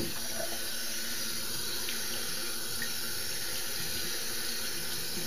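Water from a bathroom tap running steadily into a ceramic sink, with a shaving brush held in the stream to soak it.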